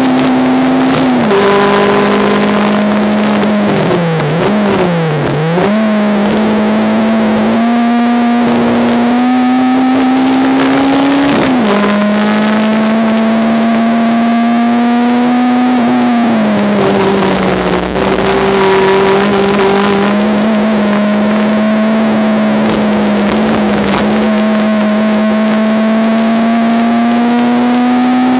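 Honda Civic race car engine heard from on board at high revs, through a poor-quality recording. Its pitch climbs slowly, drops sharply with upshifts about a second in, near twelve seconds and near sixteen seconds, and dips and wavers briefly around four to five seconds as the car brakes and changes down.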